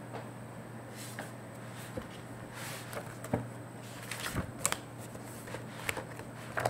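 Scattered light clicks and rustles, about a dozen, over a steady low electrical hum.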